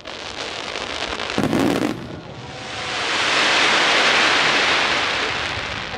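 Aerial fireworks: a sharp bang about a second and a half in, then a dense crackling hiss that swells to its loudest in the middle and fades away.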